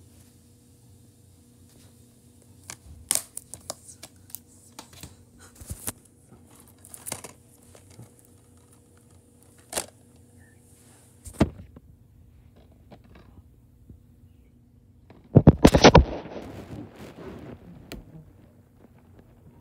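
A plastic DVD case being handled: scattered clicks and taps, a heavier knock about eleven seconds in, then a loud burst of rubbing and scraping right against the microphone a few seconds later as the camera is moved. A faint steady hum runs underneath.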